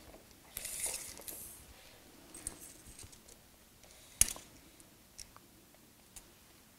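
Steel tape measure being drawn out slowly along a milling machine's table: faint sliding of the blade with light clicks, and one sharp click about four seconds in.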